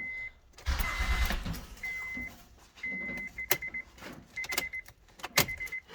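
A 2008 Honda Odyssey's dashboard warning chime beeping, first in half-second tones and then in quick runs of short beeps, with sharp clicks in between and a short rush of noise about a second in, as the faulty ignition switch cuts the dash power in and out.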